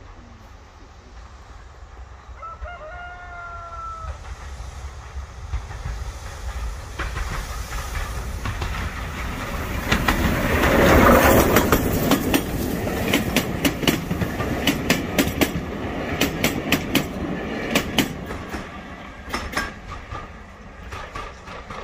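Steam train passing close by, its sound building to a peak about halfway through as the locomotive goes past. The coaches follow with a quick clickety-clack of wheels over rail joints that fades as the train draws away. A brief pitched call with a slightly falling pitch is heard about three seconds in.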